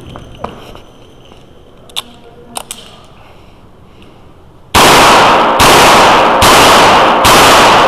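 Revolver shots on an indoor range: a few quiet seconds with faint clicks, then four shots about 0.8 s apart starting past the halfway mark, each ringing on off the walls.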